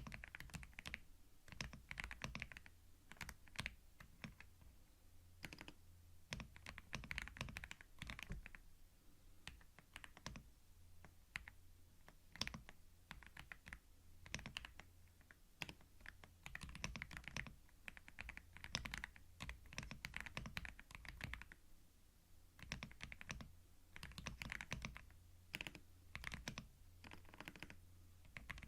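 Typing on a computer keyboard, recorded close on a binaural microphone: quick runs of key clicks broken by short pauses.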